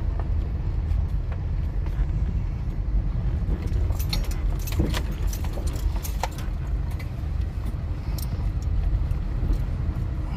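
Wind buffeting the microphone with a steady low rumble. About four to six seconds in comes a cluster of light metallic clicks and a short squeak, with a few more clicks near the end.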